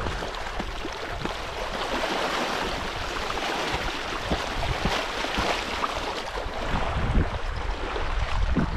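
Spring runoff water rushing along a stream, a steady hiss of flowing water.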